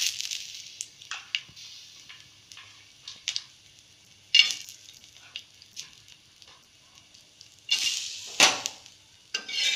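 Dried coconut slices sizzling on a hot iron tawa, loudest just after they go in and fading over the first couple of seconds, with small clicks throughout. A few louder scrapes on the pan come about four seconds in and near the end.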